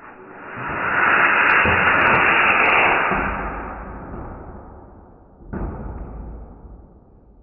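Rocket-launch roar: a rushing noise that starts suddenly, swells for about a second, holds, then fades away, with a second sudden rush about five and a half seconds in.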